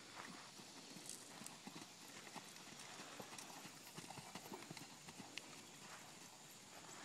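Faint hoofbeats of a horse moving over sand arena footing, an uneven run of soft thuds, loudest around the middle as the horse passes close by.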